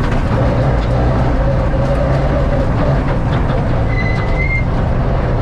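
Subaru R4 rally car heard from inside the cockpit, its engine running steadily with a constant mechanical din and rattle.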